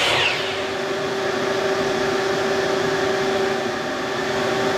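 A miter saw's motor winds down with a falling whine just after a cut. A shop vacuum connected to the saw's dust hose keeps running with a steady hum.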